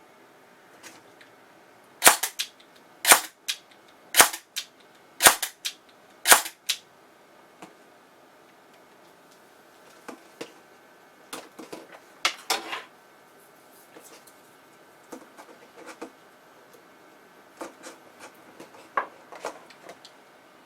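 Airsoft electric gun (AEG) fired on semi-auto: five sharp shots about a second apart, each followed by a quick smaller mechanical click. After them come quieter scattered clicks and rattles.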